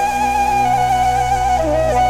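Background music: a flute playing a slow, ornamented melody, holding a long wavering note that dips lower near the end, over a steady low drone.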